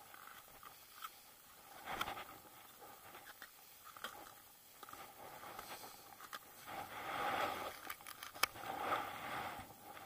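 Footsteps crunching in snow, uneven steps that grow louder in the second half, with a few sharp clicks.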